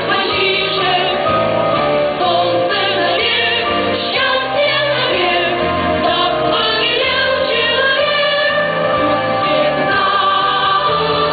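Children's choir singing, many voices at once in a steady, unbroken line.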